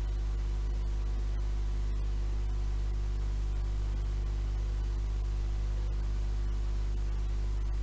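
Steady tape hiss over a low electrical mains hum, with no speech: the blank noise floor of an old 7-inch reel-to-reel tape recording.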